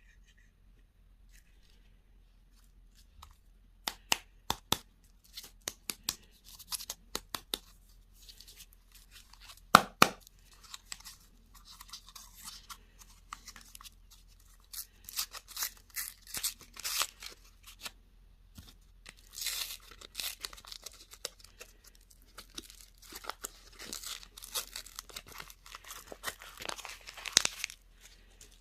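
Candy and toy wrappers being torn open and crinkled, with a run of sharp clicks and one loud snap about ten seconds in.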